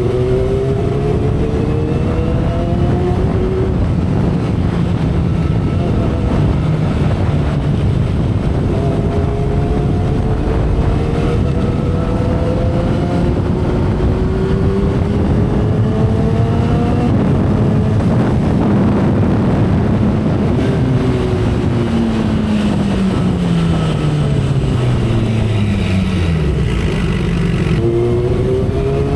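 2012 Kawasaki Ninja ZX-10R's inline-four engine at speed with heavy wind rush: the engine note climbs and drops back several times as it pulls up through the gears, falls away steadily for a few seconds past the middle as the bike slows, then climbs again near the end.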